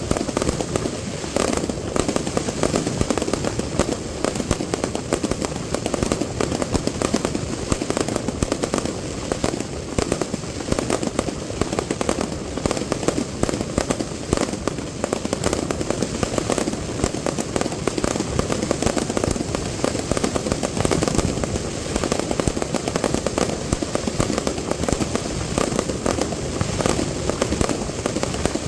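Fireworks display: a dense, unbroken barrage of cracks and bangs from shells and firecrackers bursting, continuous throughout.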